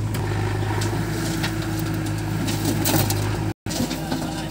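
Diesel tractor engine (Powertrac 439 Plus) idling with a steady low hum. About three and a half seconds in, the sound cuts out briefly and switches to a backhoe loader's engine running as its bucket tips soil.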